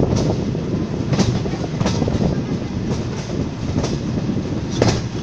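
Vintage passenger coaches of a steam-hauled heritage train running along the track, heard from an open carriage window: a steady wheel rumble with sharp clacks over the rail joints about once a second.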